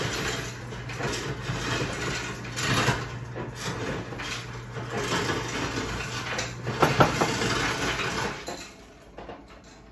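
Refrigerator ice dispenser running: a steady motor hum with ice cubes clattering out, which stops about eight and a half seconds in.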